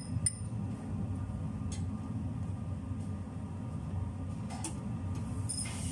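Steady low hum of kitchen machinery, with a few light clinks of a metal spoon against a small glass.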